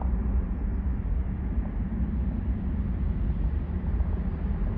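Low, steady rumble of a Boeing 737-800's jet engines as the airliner climbs away after takeoff.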